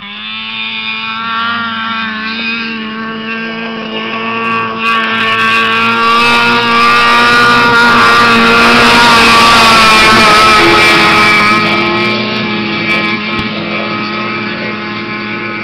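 A Ski-Doo MXZ-X snowmobile's two-stroke engine running hard as the sled skims across open water and passes close by. It grows loudest about two-thirds of the way through, then fades.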